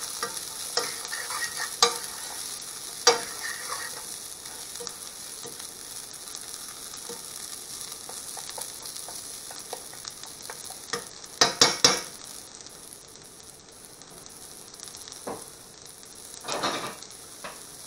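Diced meat, onions and green beans sizzling steadily in a frying pan over medium heat while a metal utensil stirs them. The utensil clicks against the pan now and then, with a quick run of clicks about eleven and a half seconds in.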